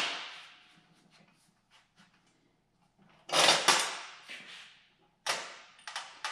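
Sharp metal knocks and clatters as a steel C-clamp is picked up off a steel welding table and fitted to clamp a wooden board to the table edge. One knock comes right at the start, a loud clatter about three and a half seconds in, and several more clanks near the end.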